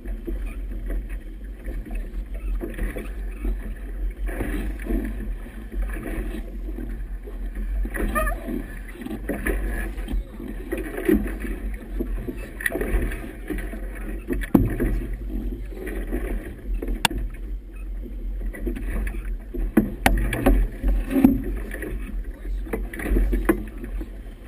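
Choppy river water slapping and splashing against a small boat's hull in a fresh breeze, with a steady low rumble and a few sharp knocks in the second half.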